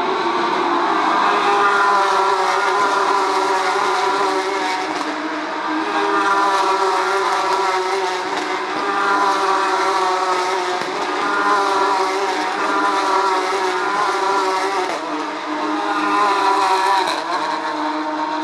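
Porsche 911 GT3 Cup race cars' flat-six engines at high revs, loud throughout, the engine note climbing and dropping again every two to three seconds as the cars accelerate through the gears.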